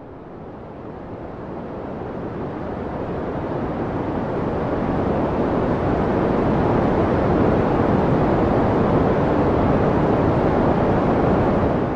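A steady rushing noise, like surf or white noise, swelling slowly over the first several seconds and then holding loud and even.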